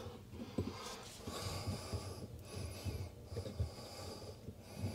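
Faint, slow breathing of a person working close to the microphone, in regular breaths about a second apart, with small handling knocks.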